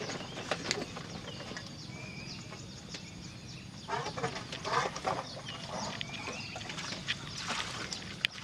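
Short bird calls among scattered sharp clicks, with a cluster of louder sounds about four to five seconds in, over a low steady background.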